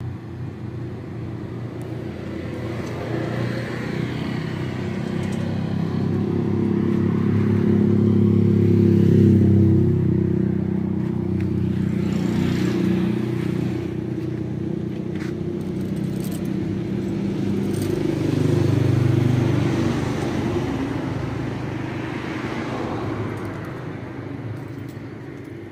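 A motor vehicle engine running, a low steady hum that swells louder about a third of the way in and again about three quarters in, then fades near the end.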